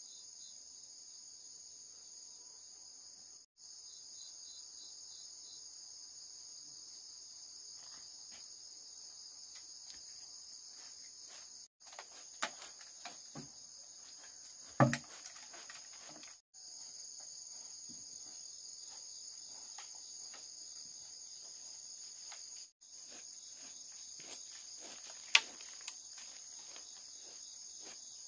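Steady high-pitched chorus of insects chirring, dropping out briefly a few times. Several sharp knocks and clicks come in the middle, the loudest about fifteen seconds in, and another sharp knock about twenty-five seconds in.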